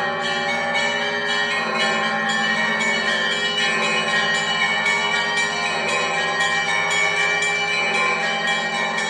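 Church bells of the Great Bell Tower of the Kyiv Pechersk Lavra ringing in Orthodox style: many bells together, the smaller ones struck several times a second over the sustained ringing of the larger ones, in one unbroken peal.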